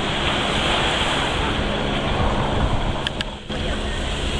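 Wind buffeting the microphone over a steady low hum of motorboat and jet-ski engines on the water. The sound briefly drops out about three and a half seconds in, then returns.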